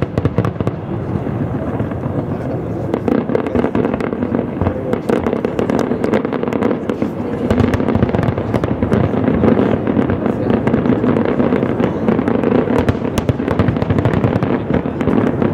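Fireworks display: a dense, unbroken run of bangs and crackles, many reports close together.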